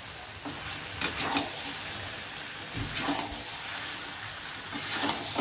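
Cauliflower, potato and peas sizzling in oil and spice paste in a metal kadai, with a metal spatula scraping the pan as it turns them, a stroke about every two seconds.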